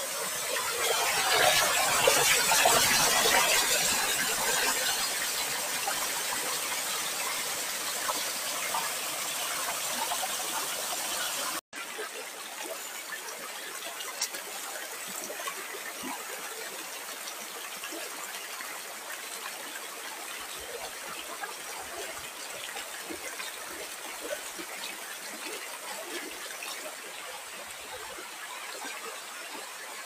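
Water pouring down a small waterfall onto rocks, loudest a couple of seconds in. After an abrupt cut about twelve seconds in, it becomes a quieter steady rush of shallow water running over a rock slab, with a few faint splashes of footsteps in the water.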